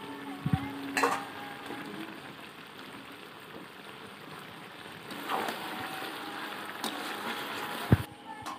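Chicken curry sizzling in a metal kadai as it cooks down, with the oil separating from the masala. A ladle knocks and scrapes against the pan a few times while stirring, the sharpest knock near the end.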